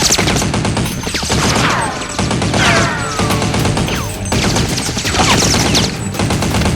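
Rapid, repeated bursts of gunfire sound effects over background music, with several whistling sweeps that fall in pitch.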